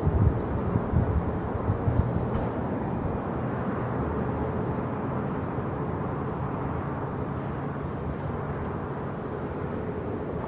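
Jet airliner engines rumbling, a deep steady noise with a faint hum in it that slowly eases off. A brief high whistle rises and falls in the first second.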